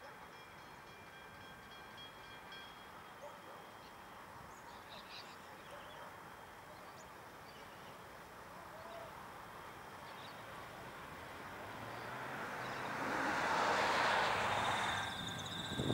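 Freight train of grain hopper wagons rolling past at a distance, a faint steady rumble on the rails. Near the end a car passes close by, its noise swelling and fading away, the loudest sound here.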